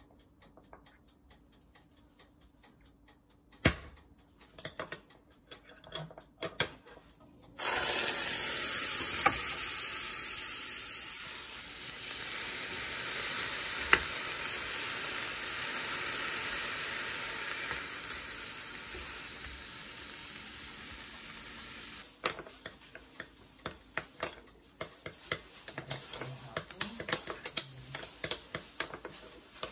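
A metal fork clinking and scraping in a small ceramic bowl as a sauce is mixed. Then shrimp sizzling steadily in a frying pan for about fifteen seconds, with a wooden spatula pushing them around. Near the end, more quick fork clinks and scrapes against the bowl.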